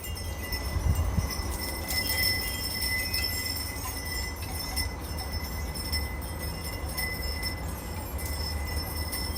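Wind chimes ringing with steady, sustained tones that swell and fade, over a continuous low rumble of breeze on the microphone.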